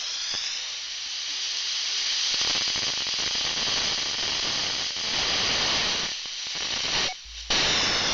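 FM radio receiver static: steady hiss from a weak Family Radio Service signal on a software-defined radio, with the transmitted voice barely audible under the noise. The hiss drops out briefly twice near the end.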